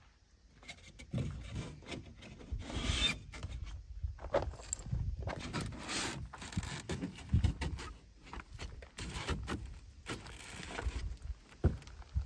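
Expanded-polystyrene ICF foam panels rubbing and scraping against each other as they are pushed and fitted into place by hand, with irregular knocks.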